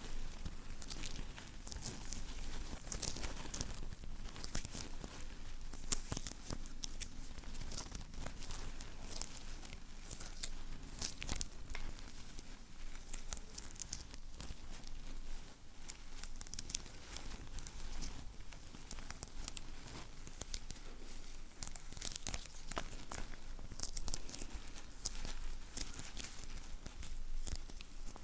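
Close-miked sticky ASMR sounds: something tacky being pressed and peeled apart over and over, giving a dense, continuous crackle of small sticky clicks and tearing.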